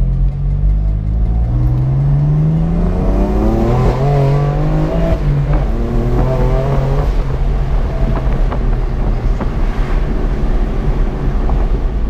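BMW M4's twin-turbo inline-six through an Akrapovic slip-fit cat-back exhaust with carbon fibre tips, heard from inside the cabin while driving. The engine note climbs under acceleration, drops at a gear change about five seconds in, then runs on at lower, steadier revs.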